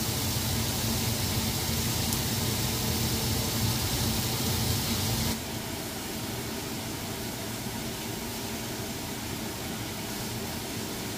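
Steak strips sizzling in a hot grill pan on a gas burner, a steady hiss with a low hum under it that drops in level about five seconds in.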